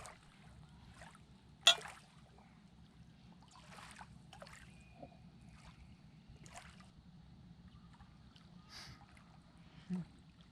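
Kayak paddle strokes dipping and splashing in lake water at an irregular pace, with one sharp splash or knock about two seconds in.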